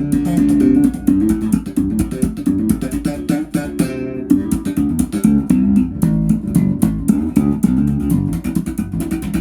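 Ibanez EHB1506MS six-string headless bass played straight out of the box, a quick line of short notes with sharp, clicky attacks.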